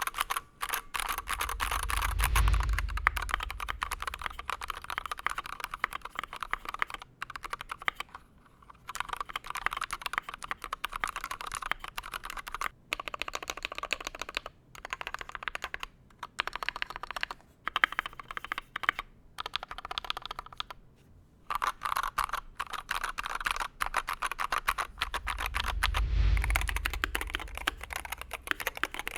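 Typing on a Wooting 60HE keyboard with Hall-effect magnetic switches, fitted in a Tofu60 walnut wood O-ring mount case: fast, continuous keystroke clicks with a few short pauses. A low rumble swells briefly twice, a couple of seconds in and near the end.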